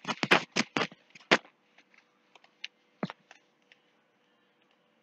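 Clicking at a computer: a quick run of sharp clicks like keyboard keys in the first second and a half, then a few single mouse clicks about three seconds in.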